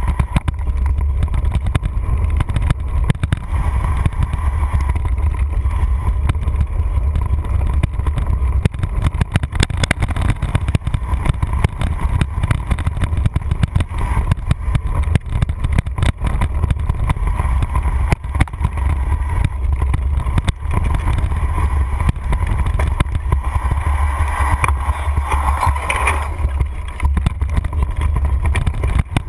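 Constant rumble and clatter of a mountain bike rolling fast over rough dirt singletrack, picked up through a handlebar-mounted camera, with a steady deep rumble and many small knocks and rattles throughout.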